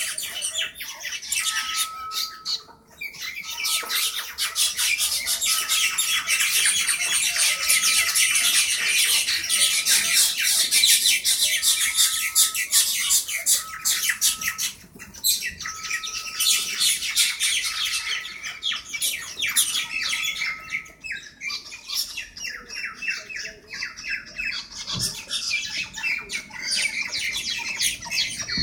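Birds fighting, squawking and screeching harshly and almost without pause. A short electronic beep repeats every couple of seconds behind them and stops about three-quarters of the way through.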